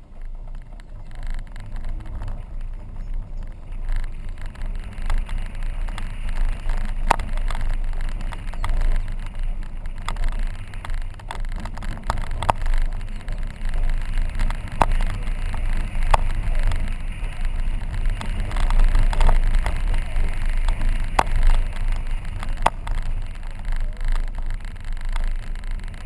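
Car driving slowly along a dirt road: a steady low rumble of engine and tyres on loose earth, with sharp clicks and knocks every second or two from the road surface.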